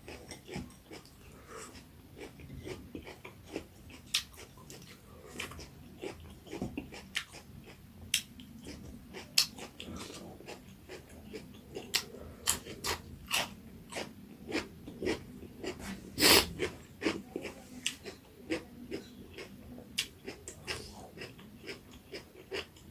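Close-up chewing and mouth smacking while eating pork curry, with irregular sharp clicks every fraction of a second.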